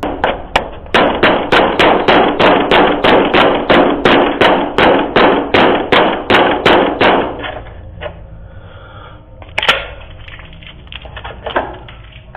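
Rapid, loud pounding on a front door, about three blows a second for some seven seconds, then stopping; two more single bangs come later. Heard through a doorbell camera's microphone.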